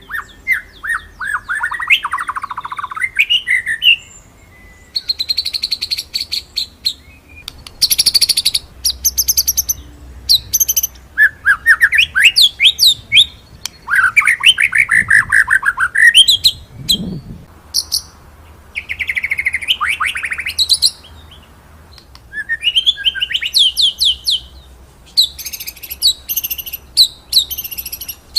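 White-rumped shama (murai batu) singing in a run of varied phrases: fast rolling trills of quickly repeated notes and sharp, high 'shooting' notes, with short pauses between phrases.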